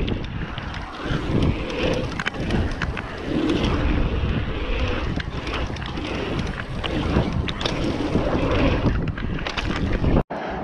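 Wind buffeting a GoPro Hero7's microphone on a mountain bike rolling fast over dirt jumps, with tyre noise and many sharp rattles from the bike over the bumps. The sound drops out abruptly near the end.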